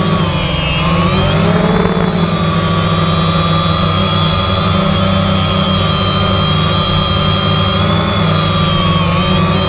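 DJI Phantom quadcopter's four electric motors and propellers, heard loud from close by. The whine dips in pitch about half a second in and rises back within a second or so, then holds steady.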